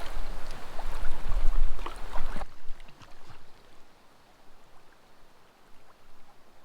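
Wind rumbling on the microphone over water splashing from a packraft being paddled. The wind noise stops abruptly about two and a half seconds in, leaving quieter water sounds with a few light clicks.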